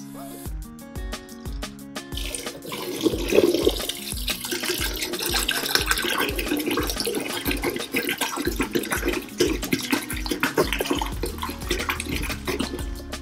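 Fanta orange soda poured from a plastic bottle in a steady stream into a plastic tub of soda and Mentos, splashing, starting a couple of seconds in and easing off near the end. Background music with a steady beat plays throughout.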